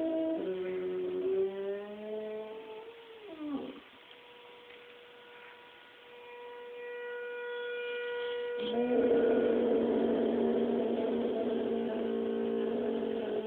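St Bernard howling: a wavering howl lasting about three and a half seconds that ends in a falling pitch, a short pause, then a louder, long, steady howl starting about two-thirds of the way in.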